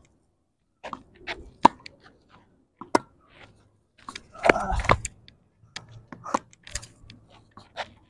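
Tennis balls being rallied gently: sharp pocks of strings on ball and the ball bouncing on the court, one every second or so, with a louder, noisier cluster of hits about halfway.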